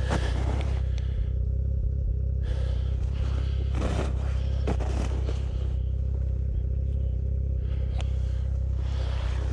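Ski-Doo Expedition snowmobile engine running steadily at a low, even pitch, with a few scrapes and knocks over it.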